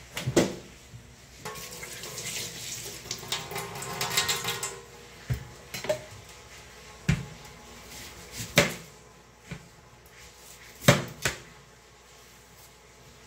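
Kitchen knife work: about three seconds of rapid metallic scraping and clatter with a faint ring, then a string of separate sharp knocks of the knife against a plastic cutting board as an onion is peeled.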